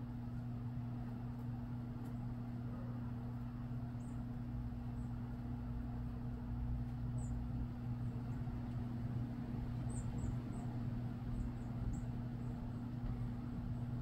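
Small birds giving thin, very high-pitched chip calls: a few about four and seven seconds in, then a quick cluster near the end. Under them runs a steady low mechanical hum.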